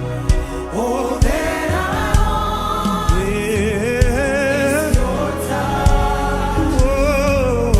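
Gospel music: a choir singing with vibrato over a steady beat, with a drum hit about once a second.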